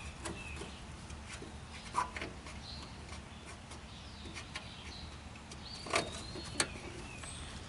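A few light clicks and knocks, the clearest about two seconds and six seconds in, as a solenoid bolt is fitted by hand on a lawn tractor; a bird chirps faintly in the background.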